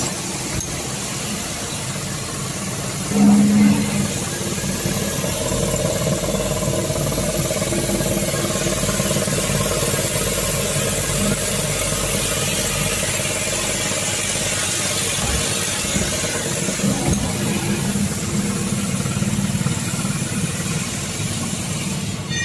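Coil nail welding machine running with a steady, dense mechanical noise. A louder low buzz comes in for about a second around three seconds in.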